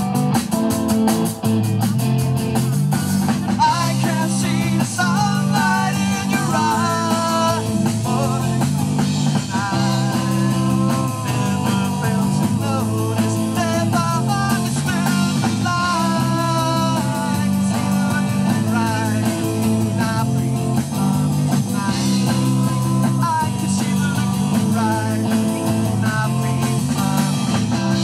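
Live rock band playing a song through the PA: electric guitars, bass guitar and drum kit, in an instrumental passage between sung verses, with a melody line wandering over a steady repeating bass pattern.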